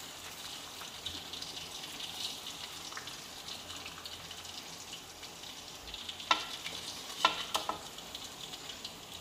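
Chili paste and oil sizzling steadily in a wok, with a few sharp clinks of a metal spatula against the wok in the second half as fried fish is lifted out.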